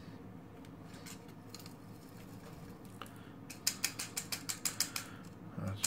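A handheld solder sucker (desoldering pump) being handled and worked, giving a quick run of sharp plastic clicks, about five a second, over a low steady hum; the pump is full of sucked-up solder.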